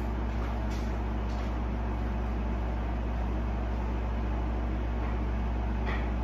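Steady low mechanical hum of a household appliance or ventilation running, with a few faint short sounds in the distance, about a second in and again near the end.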